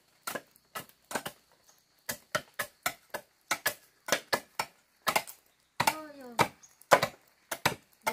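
Hand-chopping on wooden planks by two people at once: sharp wooden chops in an uneven, overlapping rhythm, several a second.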